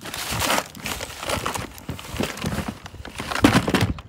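Plastic bags crinkling and rustling as items are pulled out of a plastic storage tote, in repeated bursts with the loudest about three and a half seconds in.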